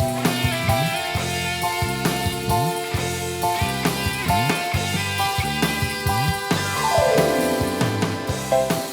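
Music with a steady drum beat and a sliding bass line, with a pitch sweep falling about seven seconds in.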